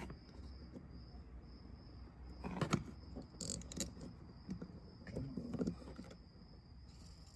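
A few short clicks and taps of multimeter test probes and leads being handled on a winch's contactor solenoids, the loudest a little over two and a half seconds in. A steady high-pitched trill runs underneath.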